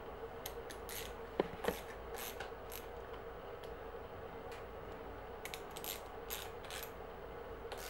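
Scattered small clicks and light metal taps as a trigger shifter and brake lever are handled and tightened on a mountain bike handlebar, with two sharper clicks about a second and a half in that ring briefly.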